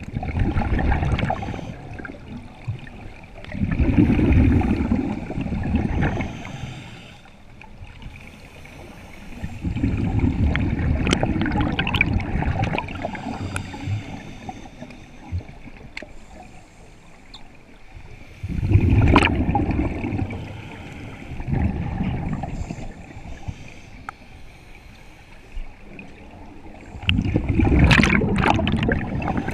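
Scuba diver breathing underwater through a regulator: exhaled bubbles bubble and gurgle past the microphone in bursts lasting a second or more, every few seconds, with quieter stretches between breaths.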